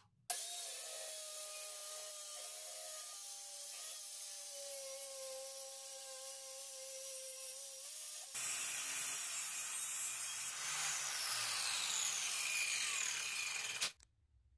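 Corded circular saw running and cutting through a plywood sheet: a steady motor whine over the hiss of the blade in the wood. The sound grows louder about eight seconds in and stops abruptly near the end.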